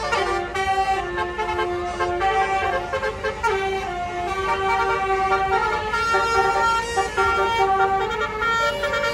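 Multi-tone 'telolet' air horn of a tour bus playing a tune: several horn notes sound together and step up and down in pitch without a break.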